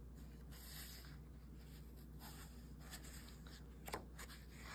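Faint rustle of a picture book's paper pages being handled and turned by hand, with a soft tick of paper about four seconds in.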